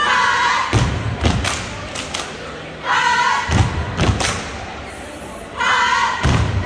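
Cheerleading squad doing a stomp-and-shake cheer: heavy stomps on a wooden gym floor in a rhythm, with the whole group shouting a chant line in unison three times, about three seconds apart.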